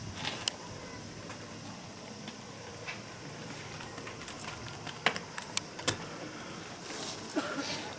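Open outdoor ambience with scattered sharp taps during a long jump. A cluster of louder taps and a low thump a little after five seconds in matches the jumper's last strides in spiked shoes, her takeoff and her landing in the sand pit.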